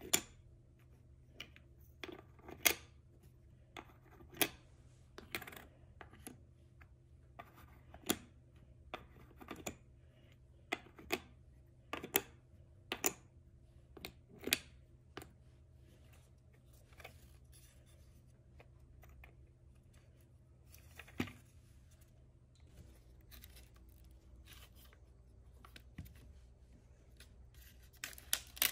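Hands opening toy packaging: irregular sharp clicks and snips, many in the first half, fewer after about fifteen seconds.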